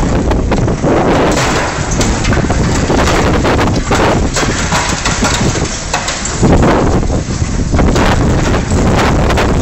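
Liebherr 944 demolition excavator working, its diesel engine running, mixed with heavy wind buffeting on the microphone.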